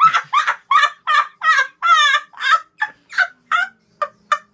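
A boy laughing hysterically in rapid, high-pitched cackles, about four or five a second, the bursts growing shorter and thinner in the second half.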